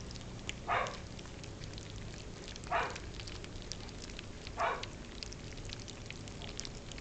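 Shetland sheepdog puppies lapping and smacking at wet puppy mash of rice cereal and canned food: a steady patter of small wet clicks. Three short whimpers come through it, about two seconds apart.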